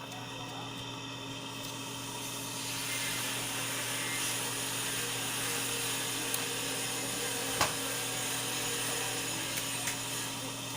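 A steady machine hum with hiss, starting suddenly, with a single sharp click about seven and a half seconds in.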